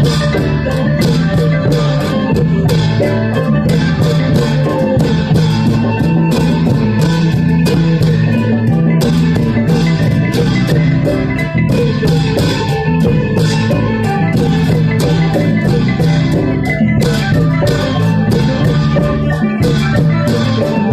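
Dance music playing: a plucked-string melody over a steady drum beat of about two strokes a second.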